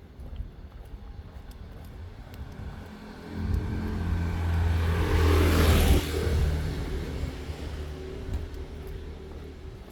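A motor vehicle drives past close by. Its engine comes in about three seconds in, is loudest near the middle, then fades away.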